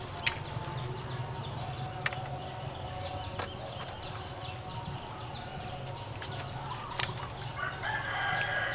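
A few sharp knocks of bamboo poles being handled and set into a bamboo frame, the loudest about seven seconds in, over steady, rapid chirping in the background.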